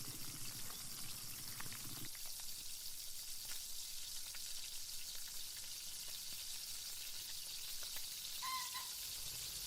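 Chicken frying in hot oil: a steady sizzle with scattered small crackles. A low sound underneath stops about two seconds in, and a brief high chirp comes near the end.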